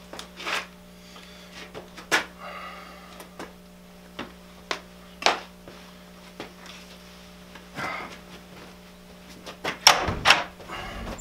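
Scattered clicks and scrapes of a knife working on a freshly removed deer hind quarter, with a cluster of louder knocks and handling noise about ten seconds in as the quarter is carried off, all over a steady low hum.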